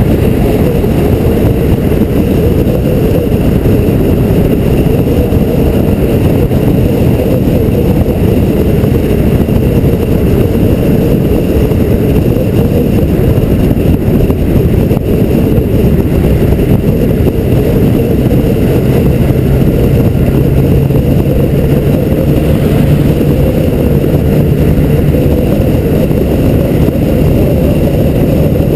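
Mid-year Porsche 911 cruising at highway speed: a steady rumble of wind and road noise with the air-cooled flat-six's low drone, which grows clearer past the halfway point and rises slightly in pitch.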